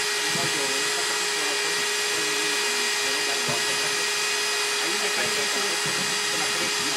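Electric diamond core drill on its stand, running steadily as its bit cuts a core out of a concrete slab: a constant motor whine over a steady grinding noise.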